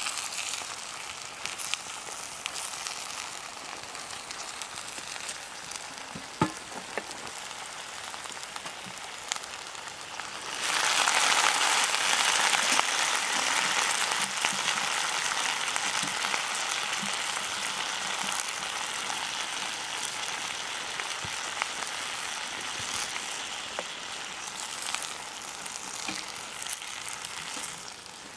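Food sizzling in a hot pan over an open fire, a steady frying hiss. About ten seconds in the sizzle suddenly grows much louder, then slowly eases off; a single sharp click sounds about six seconds in.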